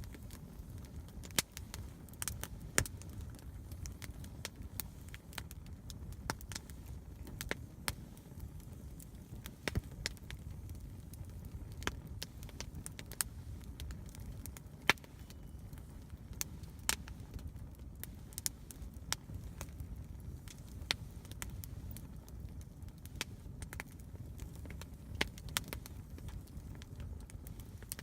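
Wood campfire crackling: irregular sharp pops and snaps, several a second at times, over a steady low noise from the burning fire.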